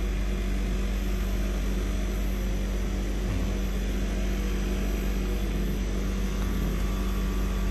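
Daikin Rebel packaged VRV rooftop unit running with its failing inverter compressor, a steady deep hum with a steady low tone in it. The technician thinks the compressor is intermittently getting tight and drawing current spikes that the inverter board detects.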